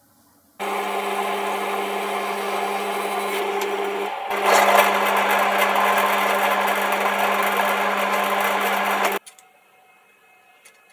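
Bench drilling machine running and cutting metal: a steady machine sound with a low hum, first as a 5 mm drill goes through the clamped block, then louder from about four seconds in as an end mill counterbores the hole. It stops abruptly about nine seconds in.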